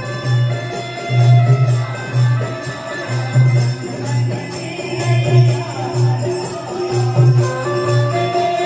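Instrumental devotional jagran music: a heavy low drum beat about once a second under a held melody line, with no singing.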